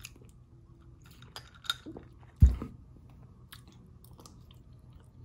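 Close-up mouth sounds of eating fried potatoes: soft chewing with small wet clicks, and one loud, short low thump about two and a half seconds in.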